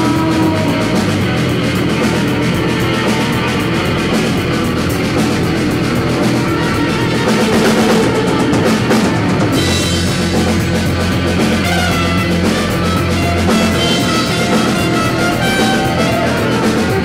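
Live band playing loud rock with electric guitar and drums. A sustained low bass drone comes in about halfway through.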